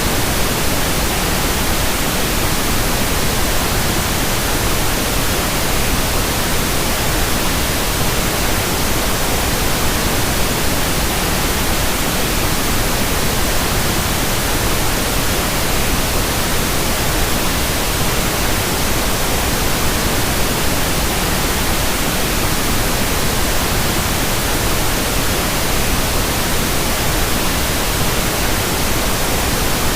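Tinnitus-masking noise: a steady, unchanging hiss spread evenly from deep to very high pitches, with no tones or breaks.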